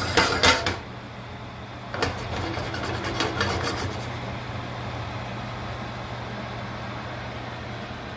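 Gravy bubbling and sizzling around whole sage leaves in a stainless steel sauté pan on a gas burner, as a steady hiss over a low hum. There are louder crackly bursts in the first second and again from about two to four seconds in.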